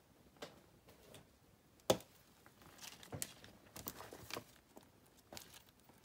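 Faint rustling and light tapping as a handmade paper-and-fabric junk journal is handled and picked up, with one sharp tap about two seconds in and a run of paper-and-fabric rustles in the middle.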